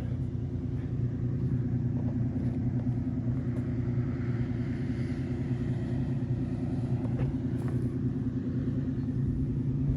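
Two-stroke chainsaw running steadily at high throttle under load, cutting a slab from a white oak log on a chainsaw mill.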